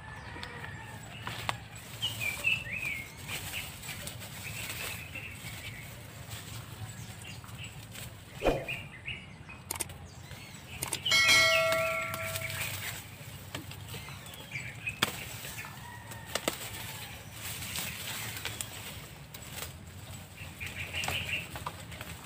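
Rustling and snapping of dry undergrowth being handled, with birds chirping. About eleven seconds in comes the loudest sound: one pitched call lasting about a second.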